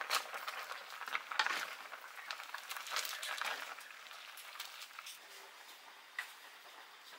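Noodles boiling in an iron wok and being stirred and lifted with a wooden stick: bubbling with irregular clicks and scrapes, busiest in the first three seconds.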